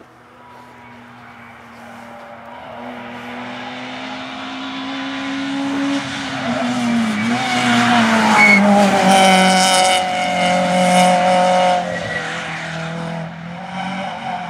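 Rally car engine approaching at racing speed, growing louder, its note dipping briefly about halfway as it changes gear, then running loud and held high for several seconds before falling back as the car passes.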